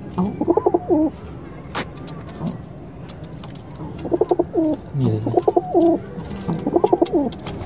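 Domestic pigeon cooing in several phrases of rapid, warbling, throaty coos, one at the start, another about four seconds in, and a last one near the end.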